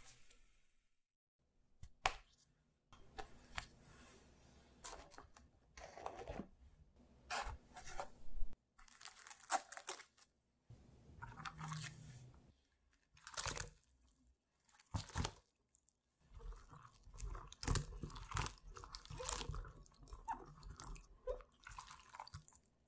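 A crinkly plastic strawberry clamshell being handled, in a string of separate crackling rustles. In the last six seconds or so, strawberries are rubbed and swished by hand in a glass bowl of water.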